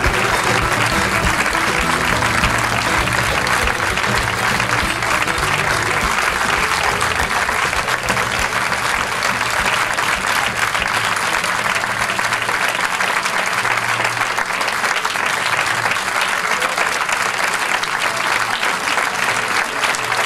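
Theatre audience applauding steadily, with music playing underneath at times.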